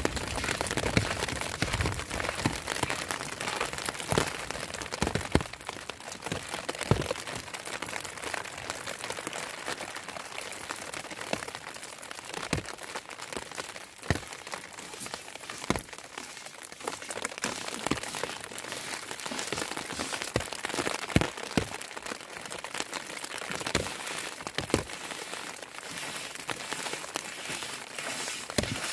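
Falling snow pattering on surfaces: a steady hiss dotted with many irregular small ticks and crackles.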